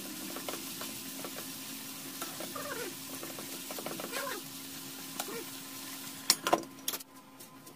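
Sliced beef, onions and peppers sizzling in a frying pan while a wooden spatula stirs and scrapes through them, with two short wavering squeaks around three and four seconds in. Near the end a metal pot lid clanks sharply a few times as it is picked up.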